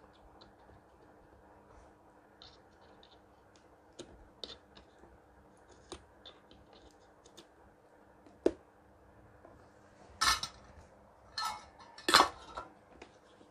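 Faint scratching and clicking of a soldering iron tip against a CRT TV's circuit board as a part is desoldered, with one sharp click about eight seconds in. Near the end come several louder clattering rattles of tools being handled.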